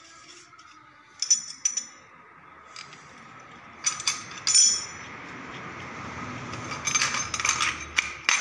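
Spanners, sockets and bolts clinking against each other and a metal tool tray as they are picked through by hand: scattered sharp metallic clinks, loudest a little past halfway and in a busy cluster near the end.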